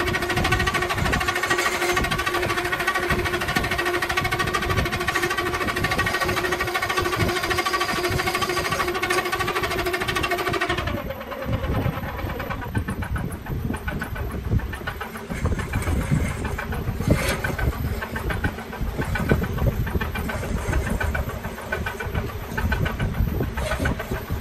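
Gouge cutting into wood spinning on a lathe, giving a steady, pitched scraping whine. The whine cuts off suddenly about eleven seconds in as the tool leaves the work, and the lathe runs on with a low rumble.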